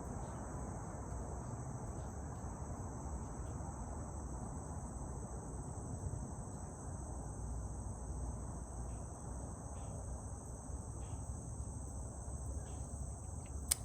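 Steady high-pitched chorus of insects over the constant low rumble of distant highway traffic, with a single sharp tick near the end.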